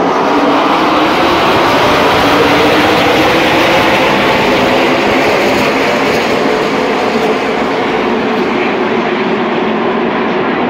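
A full field of NASCAR Xfinity stock cars' V8 engines running together at race speed, a loud, dense, steady drone of many engines at once.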